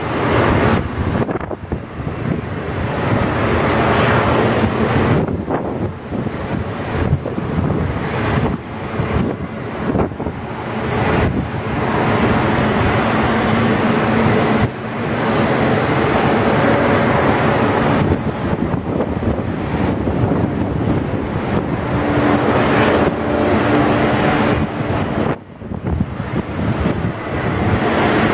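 Wind buffeting the microphone in gusts, with sharp brief dropouts a few times, over a faint steady mechanical hum.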